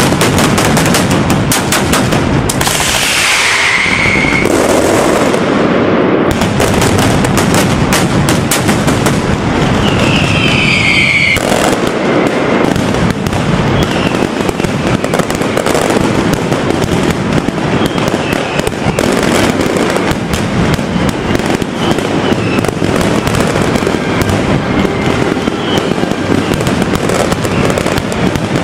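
Mascletà: a dense, unbroken barrage of firecracker bangs going off in rapid succession. Twice, about three and ten seconds in, a whistling tone slides down in pitch through the bangs.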